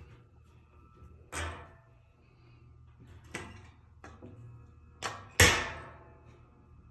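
A few knocks and bangs on the metal honey-extractor drum, each ringing briefly. The loudest comes about five and a half seconds in. Under them is a faint steady low hum.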